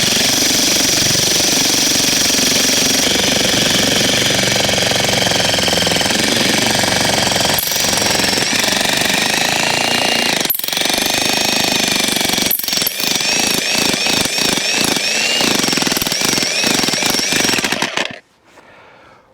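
Jackhammer running continuously as its chisel bit is driven into a firewood round, with high wavering squeals over the hammering. In the second half it cuts in and out in quick short bursts, then stops near the end.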